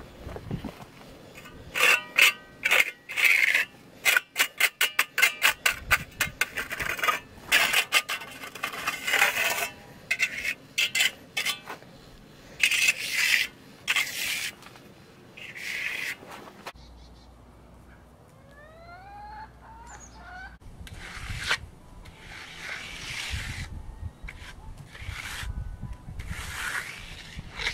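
Wooden hand float rubbing and scraping across wet, freshly poured concrete in repeated strokes, in the last part. Before that comes a long run of sharp clicks and knocks, then a few short rising chirps.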